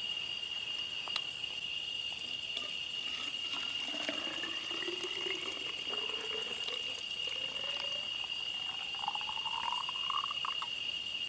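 Water being poured into a container, its pitch rising slowly as it fills, over a steady high chirring of crickets.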